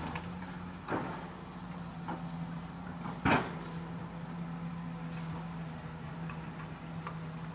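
Komatsu PC200-7 excavator's diesel engine running with a steady hum as it loads soil into a dump truck. There are sharp knocks from the bucket about a second in and, louder, just past three seconds.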